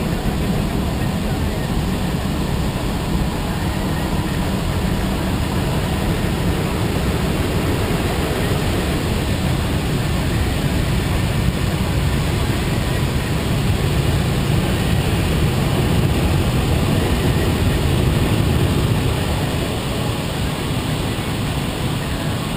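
Steady low rumble of a moving vehicle, swelling slightly past the middle and easing near the end.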